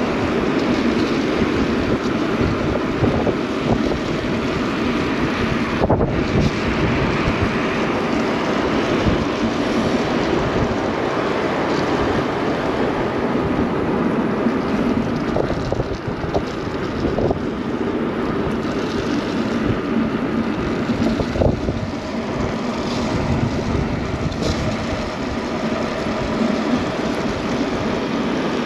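Steady wind rush on the camera microphone while riding an electric bike, mixed with road noise from the tyres on a wet road.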